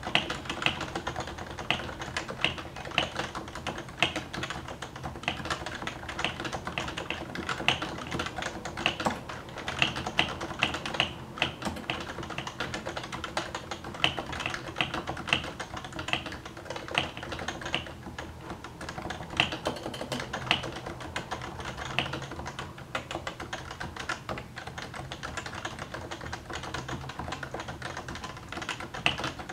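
Typing on a Topre Realforce 104U keyboard, whose variable-weight electrostatic capacitive switches sit under rubber domes: a rapid, irregular run of key presses with some louder strikes, likely the bigger keys.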